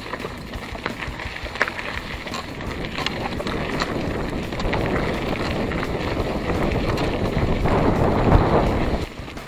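Mountain bike riding over a gravel track: wind buffeting the microphone and tyres crunching on gravel, with scattered clicks and rattles. The wind grows louder in the second half and drops off suddenly near the end.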